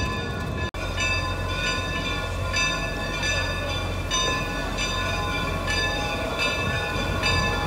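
Bells of several geared steam locomotives ringing at the same time, their strokes overlapping about once or twice a second, over the low rumble of the locomotives running past.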